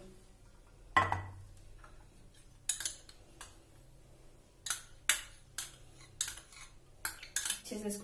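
A glass baking dish is set down on the kitchen counter with a sharp knock about a second in. It is followed by a scatter of light clicks and taps as a kitchen utensil and the glass dish are handled.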